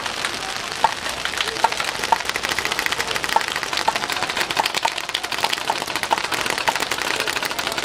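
Many paintball markers firing at once: a dense, rapid crackle of overlapping pops that keeps up with no break.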